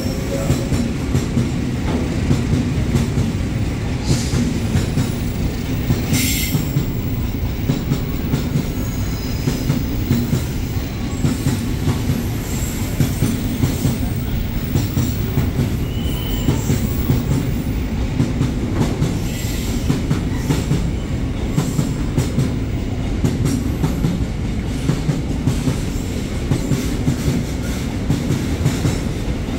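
Container freight wagons rolling past close by: a steady heavy rumble of steel wheels on rail, with frequent clacks as the wheels cross the rail joints and a brief high squeal now and then.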